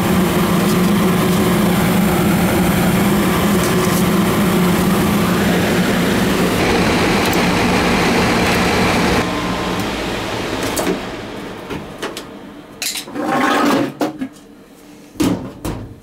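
Gas furnace running with a steady low hum from its blower and motors, then shutting off about nine seconds in and winding down over a few seconds. After that come a few sharp metal knocks and a scrape as the furnace's sheet-metal front panel is handled.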